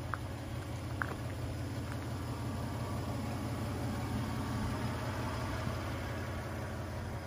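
Third-generation Toyota 4Runner's engine running steadily, with two faint clicks about a second apart near the start.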